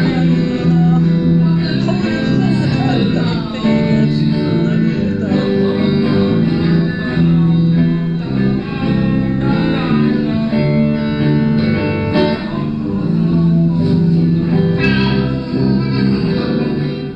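Electric bass and electric guitar playing together in a steady amplified jam on a rockabilly tune, with the bass notes walking underneath.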